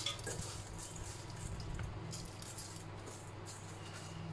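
Dried red chilies dropping and settling into a stainless steel pot: a faint dry rustle with scattered light clicks, over a steady low hum.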